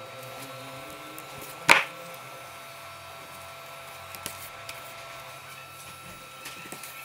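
Thread pulled through leather while hand stitching: one short, sharp rasp about two seconds in, then a few faint ticks, over a faint steady hum.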